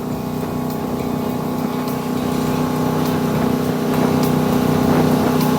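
Motorboat engine running steadily, its drone slowly growing louder.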